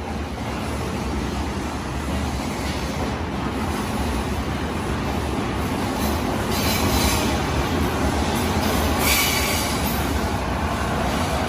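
Yokosuka/Sobu line E217-series electric train pulling out of an underground platform, its running noise building slowly as it gathers speed, with brief high-pitched rushes of wheel noise about seven and nine seconds in.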